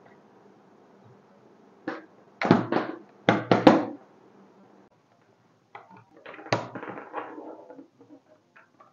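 RJ45 cable plugs being unplugged from and clicked into the sockets of a network cable tester, with handling knocks: a cluster of loud knocks and clicks about two to four seconds in, then a run of smaller clicks.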